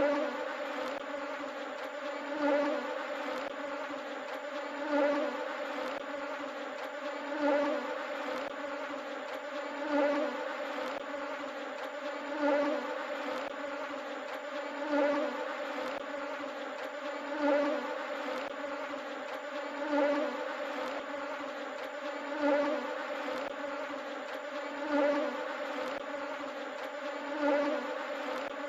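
Honeybees buzzing en masse: a dense, steady hum that swells slightly about every two and a half seconds.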